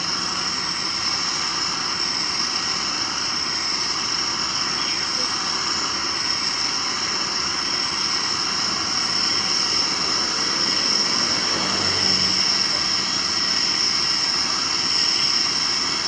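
Steady roar of a gas burner heating a traditional cast-iron popcorn pressure drum as the drum is turned by hand, with a steady high-pitched whine over it.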